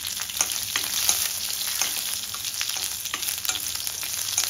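Pieces of drumstick (moringa pod) sizzling and crackling in hot oil with mustard seeds in a stainless steel kadai. Near the end they are stirred with a wooden spatula.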